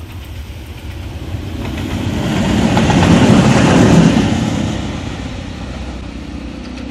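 Newag E6ACT Dragon locomotive running light, with no train, passing close by on snowy track: the rumble and rail noise swell to a peak about three to four seconds in, then fade as it moves away.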